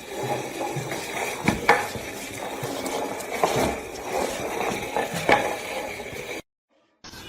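Household clatter: a few sharp knocks and clinks over a steady rustling noise, cutting off abruptly near the end.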